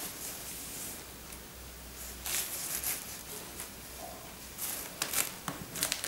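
Bubble wrap and plastic packing around a doll rustling and crinkling as hands handle it, in short bursts about two seconds in and again near the end.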